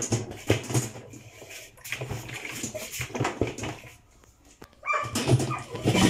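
Knocks and clatter as the loosened inner tub of a top-load washing machine is worked free of its centre shaft, with high whining squeals near the end.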